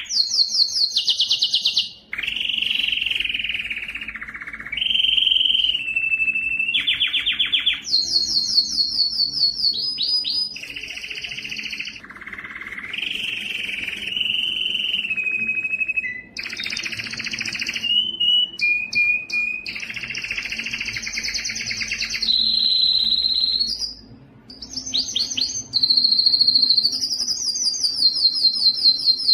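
Male domestic canary singing continuously: a long run of rapid trills and rolls, each phrase a fast repetition of one note before switching to another pitch, some higher and some lower, with a short pause about two-thirds of the way through.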